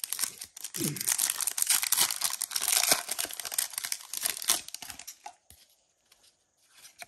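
Foil Pokémon booster pack wrapper crinkling and tearing as it is opened by hand. It makes a dense crackling rustle that dies away about five seconds in, leaving only faint ticks of card handling.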